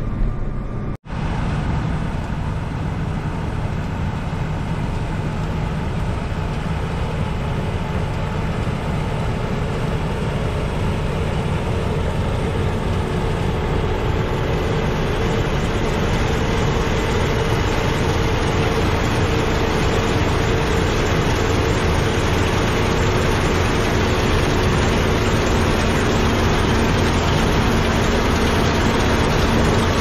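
Case IH combine harvesting wheat, its engine and threshing machinery running as a steady, loud drone that grows a little louder toward the end as the machine comes closer.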